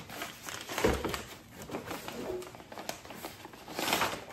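Brown paper mailer rustling and crinkling as a scrapbook is pulled out of it. There is a sharp knock about a second in and a louder crinkle near the end.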